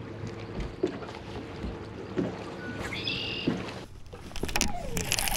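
Fishing boat sounds on the water: a steady low hum with a few light knocks and a brief high chirp about three seconds in, then a louder rushing noise near the end.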